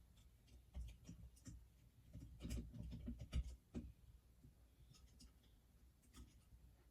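Faint clicks and soft scraping of the ceiling fan's light globe being handled and fitted back onto the fixture, busiest in the middle.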